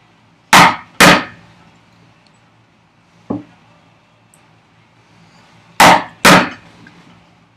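A large timber framing chisel being struck to chop straight down into a housing dado in wood: two hard blows in quick succession, a lighter tap about three seconds in, then another pair of hard blows near the end.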